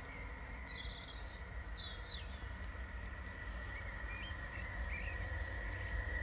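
Level crossing warning alarm holding a steady high tone, with birds chirping and the low rumble of an approaching train growing louder near the end.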